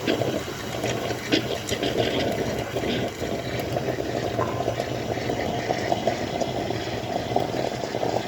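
De'Longhi EC9 espresso machine steaming and frothing milk: a steady hiss with a fine crackling gurgle.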